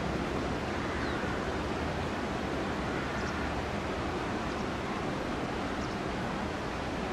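Floodwater of the River Culm rushing, a steady even noise with no breaks.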